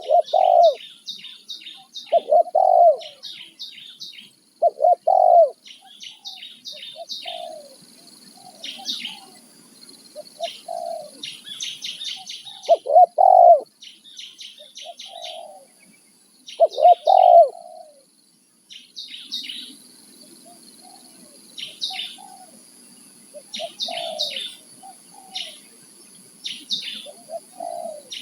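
Spotted doves (tekukur) cooing in repeated phrases, with the loudest coos in the first half, over frequent rapid chirping of small birds.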